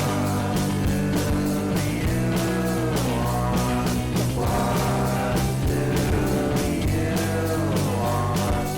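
Background music: a rock song with a steady beat, guitar and a sung melody.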